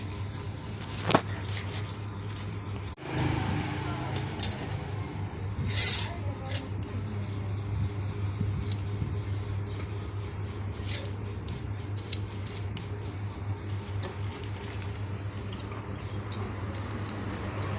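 Small metal tools and parts clinking and tapping over a steady low hum, with one sharp metallic knock about a second in and a short hiss a few seconds later.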